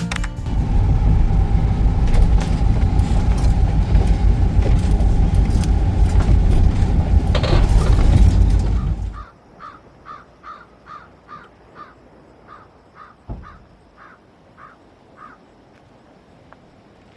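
Loud, steady rushing and rumbling noise that cuts off abruptly about nine seconds in. Then a bird calls about fourteen times in a quick, even series, roughly two calls a second, with one dull thump among the calls.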